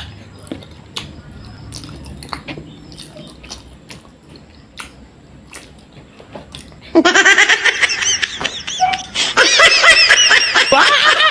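Faint wet chewing and mouth clicks, then about seven seconds in a loud, high-pitched laughter sound effect with a wobbling pitch comes in and runs on.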